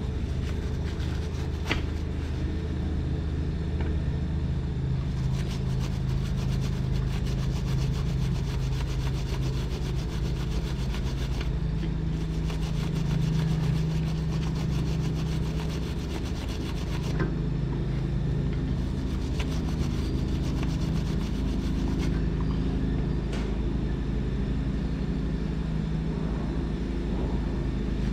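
Small hand brush scrubbing the aluminum transmission case around the weld joint, a scratchy rubbing that cleans the metal before TIG welding. Under it runs a steady low machine hum, the loudest sound throughout.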